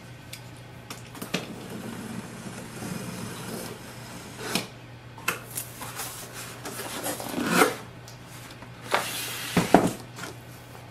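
A cardboard box being opened: a utility knife scraping along the packing tape, then the cardboard flaps rubbing and folding back. Irregular scrapes and rustles, with a few louder knocks and rustles near the end.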